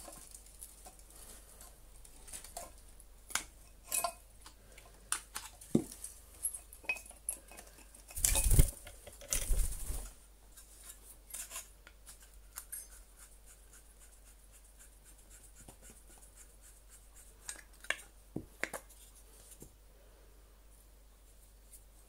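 Scattered metallic clicks and clinks of hand tools and loose parts on a Hoover Junior vacuum cleaner motor being taken apart, with a louder scraping rattle lasting about two seconds near the middle.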